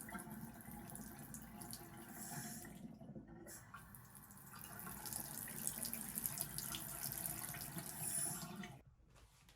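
Aolemi single-handle waterfall bathroom faucet running, its water splashing steadily into the sink. The sound dips briefly about three seconds in and stops suddenly near the end as the faucet is shut off.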